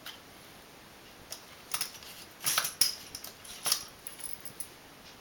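A small screwdriver clicking and scraping against the metal spring tabs that hold a laptop's RAM module as they are pried open. A few light ticks, then a cluster of sharp clicks and scrapes in the middle.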